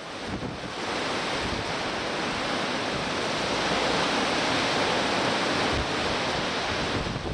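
Strong gusting wind, gusts up to about 65 mph, rushing as a dense, steady hiss that builds over the first second, with some rumbling buffeting on the microphone.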